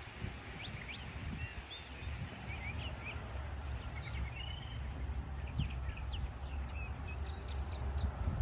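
Small birds chirping and trilling, many short high calls scattered through, over a steady low rumble.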